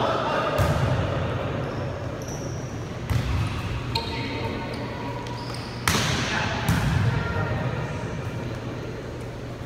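Volleyball rally in a gym: several sharp slaps of hands striking the ball, the loudest about six seconds in, echoing in the hall, with players' voices calling out.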